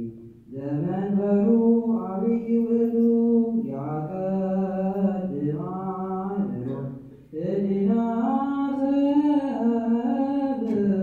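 Ethiopian Orthodox liturgical chant for the feast of St. Mary, sung in long drawn-out phrases with slowly shifting held notes. It breaks off briefly near the start and again about seven seconds in.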